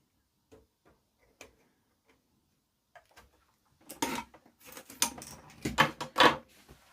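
Faint scattered clicks and taps, then from about four seconds in a louder run of clattering and scraping handling noise as parts of the amplifier are put back and moved about on a workbench.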